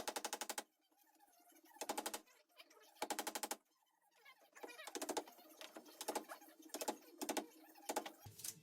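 About seven short bursts of rapid mechanical rattling, each a quick run of clicks lasting under a second, separated by brief pauses.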